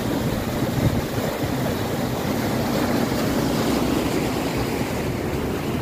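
Steady rush of a river running high in flood after torrential rain.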